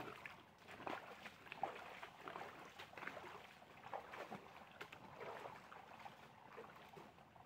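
Rubber wellington boots wading through a shallow, stony stream, with a splash and slosh of water at each step, growing fainter toward the end.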